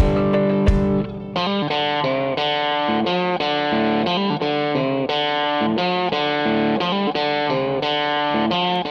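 Background music led by guitar, its chords changing about twice a second, with a few sharp drum-like hits about a second in.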